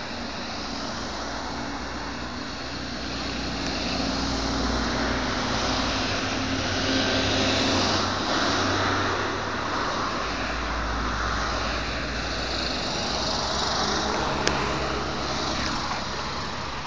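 Ambulances and cars driving past, without sirens: engine hum and tyre noise swell as the vehicles go by, loudest about halfway through. There is a short click near the end.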